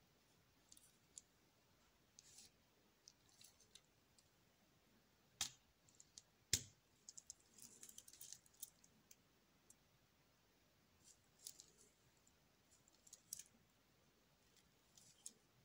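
Faint scattered clicks and small metallic clinks from a 1974 Omega Equinoxe watch and its steel link bracelet being handled. The two sharpest clicks come about a second apart near the middle, followed by a run of light clinks.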